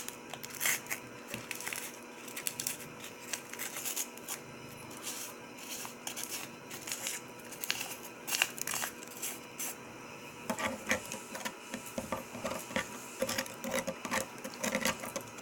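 Small irregular clicks and taps of handling a packet over a clear sea monkey tank. From about ten seconds in, a utensil stirs the purifier powder into the water, tapping more busily against the container.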